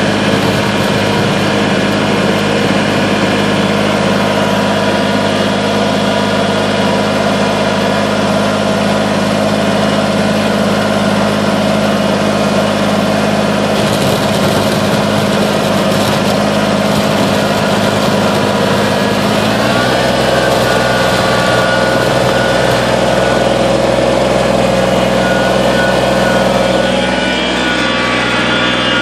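Kubota BX25 compact tractor's three-cylinder diesel engine running steadily while plowing snow. Its note shifts about two-thirds of the way through and drops again near the end.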